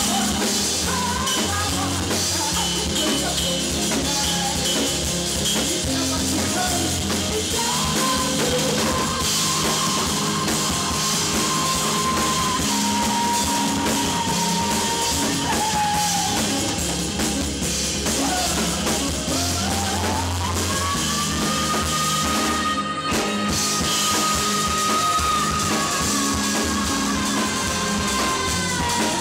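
Live rock band playing: drum kit and bass under a woman's sung vocal, which holds long notes.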